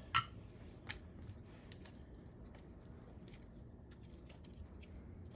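Soldering iron tip being cleaned: a sharp click just after the start, then faint scattered scratching and light ticks of the tip being wiped.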